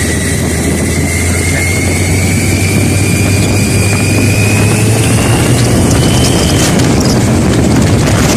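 Yamaha FZ750 inline-four engine running loud and steady, with a thin whine that rises slowly in pitch.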